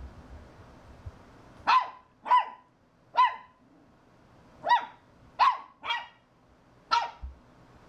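Shih Tzu puppy barking at a vacuum cleaner that is not running: seven short, high-pitched barks at uneven intervals, the first about two seconds in.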